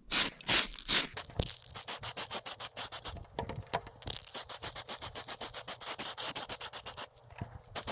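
Aerosol can of polycarbonate (Lexan) spray paint being shaken hard by hand: a fast, even rattle of about seven shakes a second, mixing the paint before a coat, with a brief break near the end.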